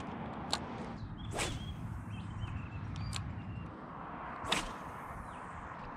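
A light spinning rod swishing sharply through the air three times, as when casting and flicking a small soft-plastic lure, over a steady low rumble.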